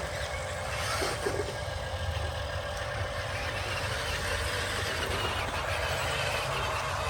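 1:16 scale RC construction machine running: a steady, engine-like drone with a constant whine above it.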